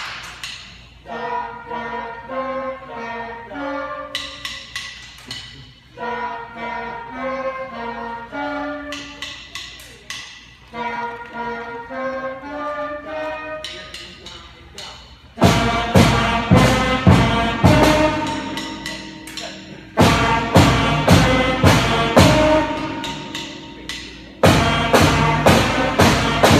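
Student concert band of saxophones, clarinets, cello and percussion playing a light, bouncy tune. About halfway through, the full band comes in much louder, with strong percussion hits on the beat.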